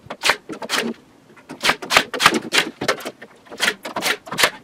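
Battery-powered nail gun firing 2-inch nails into a wooden stair riser: about ten sharp shots in quick, irregular succession.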